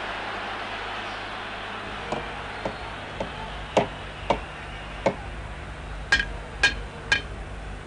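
Sharp clock-like ticks or knocks, about two a second, starting about two seconds in; several near the end carry a short ringing pitch. Under them, a steady crowd-like noise from the match footage dies away in the first two seconds.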